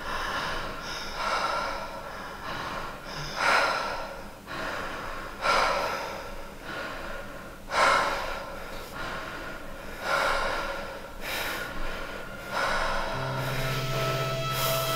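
Heavy breathing: loud, rushing breaths about every two seconds. Near the end a steady held tone starts under them.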